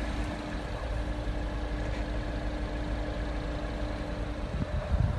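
Wind rumbling and buffeting across a phone microphone, with a steady low hum that stops about four and a half seconds in.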